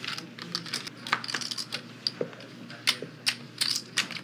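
Clay poker chips clicking against each other in quick, irregular clicks as they are stacked and handled on the table.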